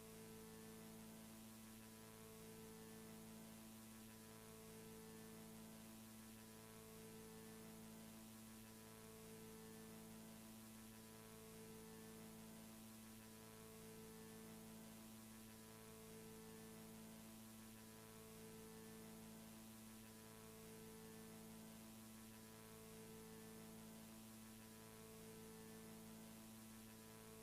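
Faint, low electronic hum made of several steady tones, some of which pulse on and off about every two seconds.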